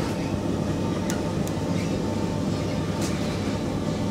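Interior sound of a Stockholm Metro C20 train car running on the rails into a station: a steady rumble with a faint steady whine, broken by a few brief high ticks.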